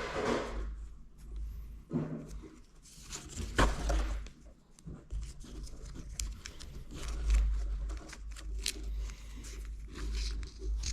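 Handling noises: scattered rustles, scrapes and sharp clicks, over a low rumble.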